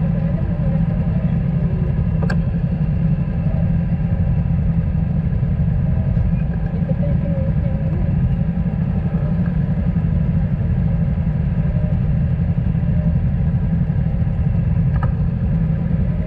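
Motorcycle engines idling in stopped traffic: a steady low engine drone with a couple of faint clicks.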